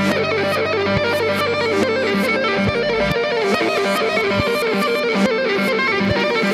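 Background music led by guitar over a steady drum beat.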